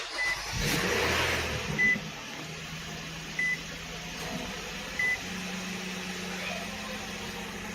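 A vehicle engine starting and settling into a steady idle, while a warning chime beeps four times about a second and a half apart.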